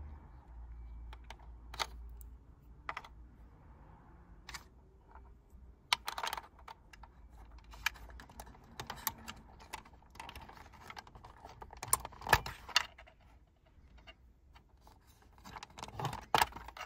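Plastic wiring connectors being pulled by hand off the back of a car's infotainment display unit: scattered light clicks and the rustle of cloth-taped wiring, with a cluster of sharper clicks about twelve seconds in and again near the end.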